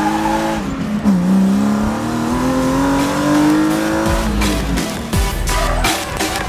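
BMW E36 M3's inline-six engine heard from inside the cabin under hard acceleration: its pitch climbs, drops sharply about a second in, then climbs steadily again for about three seconds. About four seconds in, electronic music with a steady beat comes in over it.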